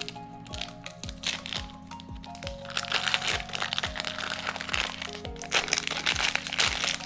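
Foil blind-bag wrappers crinkling and crackling as hands tear and pull them open, busiest in the second half, over background music with a steady beat.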